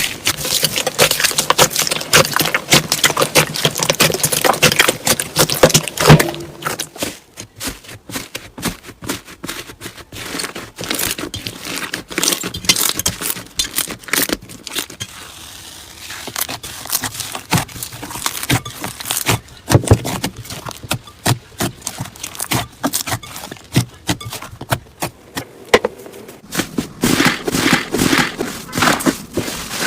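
Slime being squeezed and poked by hands: dense, irregular crackling and popping, busiest at the start and again near the end, sparser in the long middle stretch.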